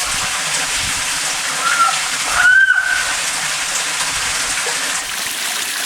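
Amami Ishikawa's frog calling with short bird-like whistles, "kyoo", over the steady rush of a stream: a brief call about a second and a half in, then a longer, louder one held for about half a second.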